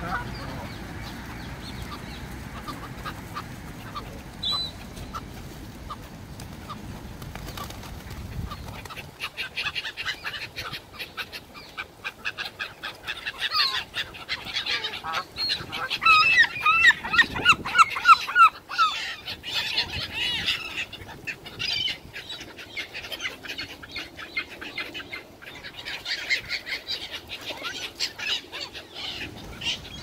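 A flock of Canada geese honking, with other birds calling and wings flapping among them. The calls grow busier about nine seconds in and are loudest in a run of quick, repeated honks about halfway through.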